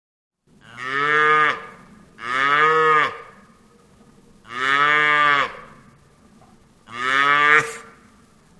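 A cow mooing four times, each moo about a second long, rising a little in pitch and then falling, with short pauses between them.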